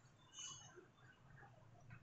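Near silence: faint room tone with a few light ticks from chalk on a blackboard, and a brief faint high squeak about half a second in.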